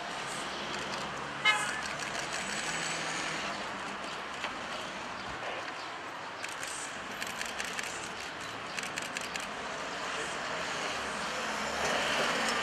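City street traffic noise with a short car horn toot about a second and a half in, the loudest sound, and a run of light clicks in the second half.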